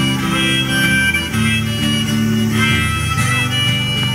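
Live amplified acoustic music: two acoustic guitars strumming, with a steady held melody line over them that changes note every second or so.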